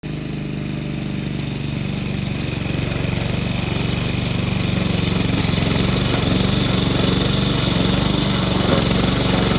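Gas-powered walk-behind lawn mower engine running steadily while cutting tall grass, growing gradually louder as the mower comes closer.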